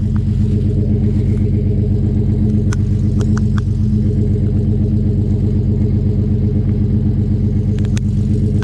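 Truck engine idling steadily through a freshly installed homemade exhaust, with a few faint clicks over it.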